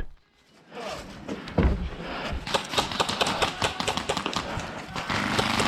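Airsoft guns firing in a field game, a scatter of sharp clicking shots and short strings of clicks over rustling noise.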